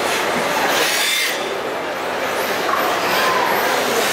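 Electric RC drift cars circling the track: their motors whine, rising and falling in pitch with the throttle, over a steady hiss of tyres sliding on the track surface.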